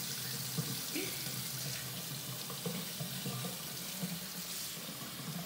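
Water running steadily from a kitchen faucet's pull-down sprayer into a sink, splashing over a hand held under the stream.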